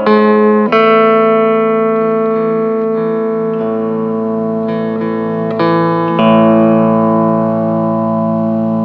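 Hawaiian steel guitar playing long sustained notes, changing pitch under a second in and twice more around five and a half to six seconds in, then holding a long ringing note that slowly fades.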